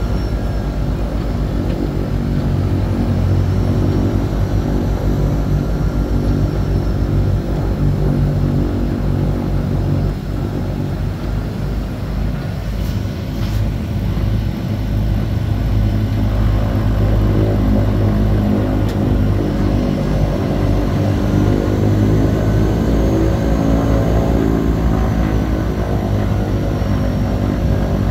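Propeller aircraft's engines and propellers running while the plane taxis, heard from inside the small cabin as a steady drone with a low propeller hum. The drone eases slightly about ten seconds in and builds again a few seconds later.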